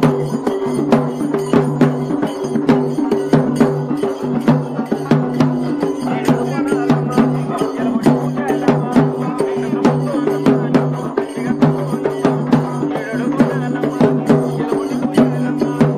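Music with fast, steady drumming over sustained droning tones.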